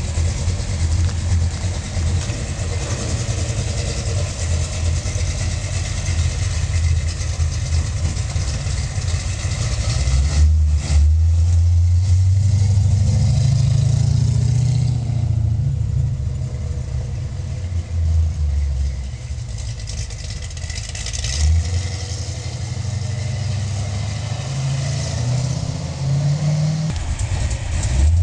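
1967 Dodge Dart GT's 440 big-block V8 running through headers, a 3-inch X-pipe exhaust with turndowns and Flowtech Afterburner welded mufflers: a steady idle, then from about ten seconds in the engine note rises and falls as the car is revved and driven.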